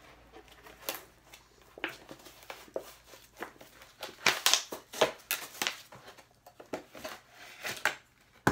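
Clear plastic blister packaging being pried and torn open by hand: irregular crinkling and crackling with sharp plastic snaps, loudest about halfway through and once more at the very end.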